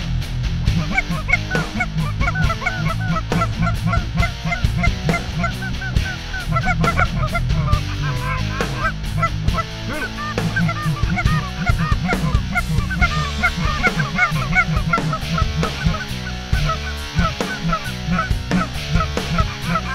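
Flock of Canada geese honking, many overlapping calls one after another without a break, over a low steady rumble.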